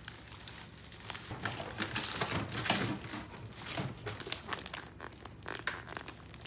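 Plastic grocery packaging crinkling and rustling as it is handled: a plastic clamshell container and thin plastic produce bags, with many irregular crackles.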